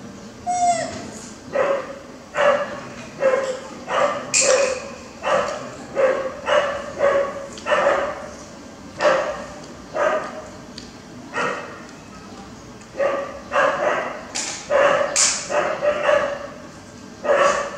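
Baby macaque making short, repeated little calls, about one or two a second, with a squeak near the start and a brief pause about two-thirds of the way through.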